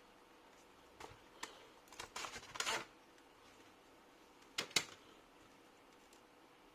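Sharp plastic clicks and a short scraping rattle as a laptop's case and keyboard parts are handled and pried. There is a click about a second in, the rattle at around two to three seconds, and a double click near five seconds.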